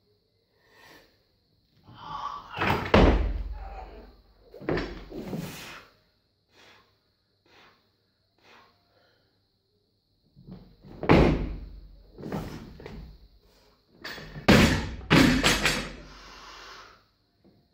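Clean and jerk of a 115 kg barbell loaded with bumper plates: heavy thuds as the bar is cleaned and then jerked in the first few seconds. About eleven seconds in the bar is dropped from overhead onto the rubber platform, and the plates bang and bounce several times.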